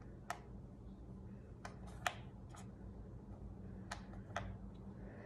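Faint, irregular ticks and clicks, some in close pairs about half a second apart, over a low steady hum in a small room.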